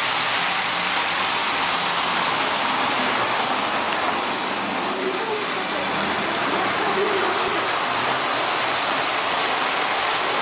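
Electric toy trains running on three-rail tinplate track, a steady whirring rattle of motors and wheels on metal rails.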